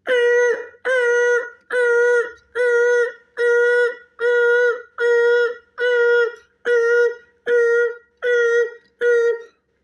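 A person's voice imitating a truck's reversing alarm: twelve loud, evenly spaced beeps of one steady pitch, a little under one a second.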